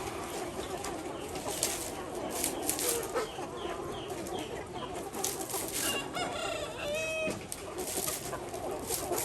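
A flock of Ho chickens calling: a run of about five short falling clucks, then a longer rooster crow about six seconds in.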